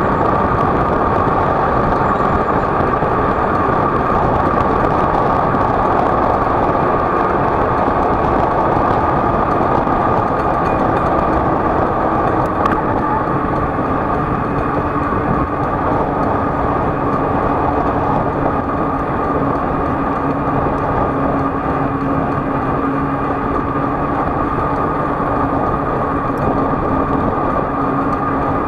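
A motor vehicle on the move: steady engine hum under dense road and wind noise, with the engine note standing out more clearly from about halfway through.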